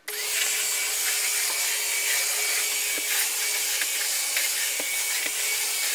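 Vacuum cleaner running steadily: an even rushing hiss with a steady motor tone under it and a few faint clicks.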